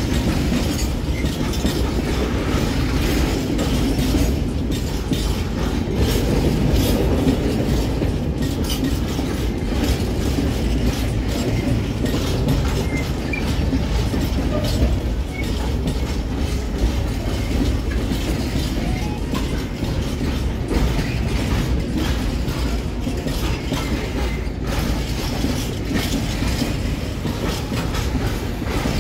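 Freight train of covered hopper wagons rolling past: a steady rumble of steel wheels on rail, with frequent clicks as the wheels run over the track.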